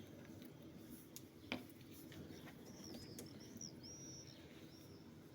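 Faint bird chirping through an open window: a short run of high chirps about halfway through, with a single sharp click a second and a half in, over low room hum.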